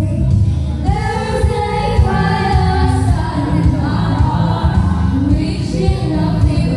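Female vocal group singing together into microphones over amplified backing music with a steady bass beat; the voices come in strongly about a second in.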